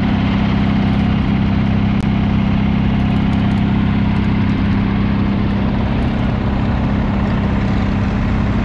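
Vintage farm tractor engines running steadily as the tractors drive along, an even engine drone that does not change in pitch.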